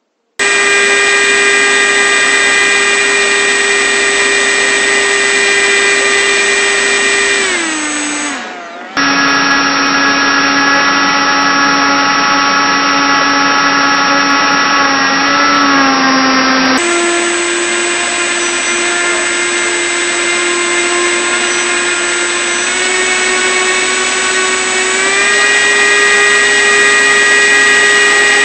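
RC airboat's motor and propeller running close by with a steady whine. The pitch drops as the throttle eases about eight seconds in, jumps abruptly twice, and climbs again near the end as it speeds up.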